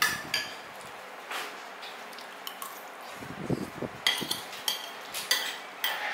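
Cutlery clinking against dishes during a meal: a couple of sharp clinks near the start, then several more from about four seconds in.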